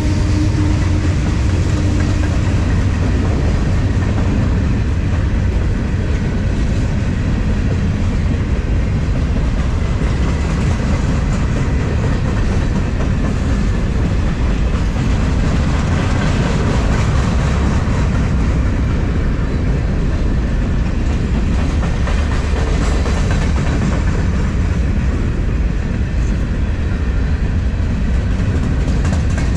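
Freight train cars rolling steadily past, their wheels clacking over the rail joints with a continuous heavy rumble.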